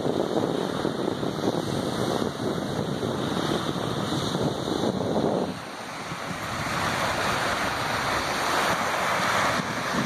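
Small waves breaking and washing up a sandy shore, with wind buffeting the microphone. The wind eases about halfway through, leaving the hiss of the surf.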